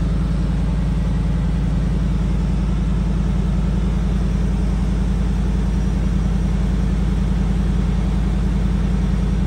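Lifted pickup truck's engine idling steadily: an even, low rumble.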